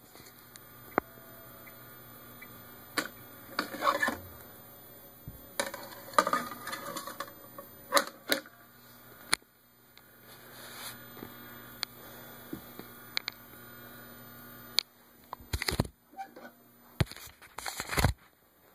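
Handling noise of a phone being moved about: scattered knocks, clicks and short rustles over a low steady hum that stops a few seconds before the end.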